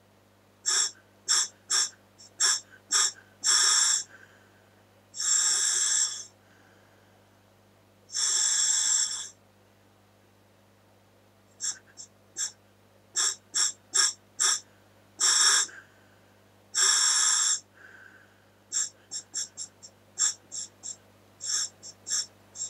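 Scuba regulator breathed through a full-face mask, its air flow hissing in separate bursts with quiet gaps. Runs of short quick bursts alternate with several longer ones of about a second each.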